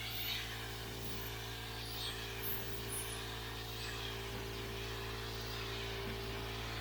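Air compressor running steadily with a constant hum, feeding a paint spray gun as primer is sprayed, with a few brief high hisses.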